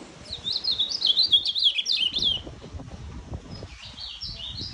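Male ultramarine grosbeak (azulão) singing the song type that keepers call "oi de gato". It gives a loud, quick phrase of high warbled notes that rise and fall, then a second, quieter phrase near the end.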